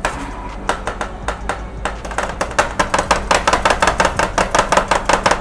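Two metal spatulas chopping blueberries on the chilled steel plate of a rolled ice cream pan, metal clacking on metal. The strikes are sparse at first, then come fast and steady, several a second, from about two seconds in.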